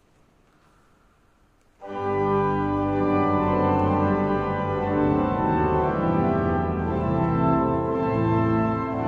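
Near silence for almost two seconds. Then an 1855 E. F. Walcker pipe organ comes in suddenly with a loud full chord and goes on in sustained chords over a strong bass: the opening of a short organ prelude in G major.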